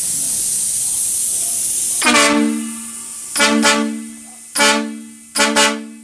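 Circuit 12-volt twin-trumpet air horn, fed from a compressed-air tank, sounding four short blasts of a two-note chord about a second apart, each trailing off. Before the first blast there is a steady hiss of air.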